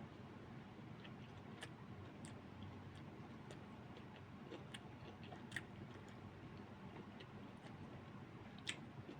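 Faint eating sounds: a person chewing, with scattered small sharp clicks, the loudest about five and a half seconds in and near the end, over a steady low room hum.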